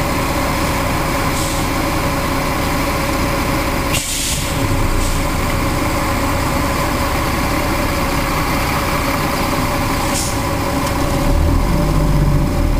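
Fire engine's diesel engine and road noise heard inside the cab while driving, with a steady whining tone and two short hisses. Near the end the engine's low note grows as it pulls harder.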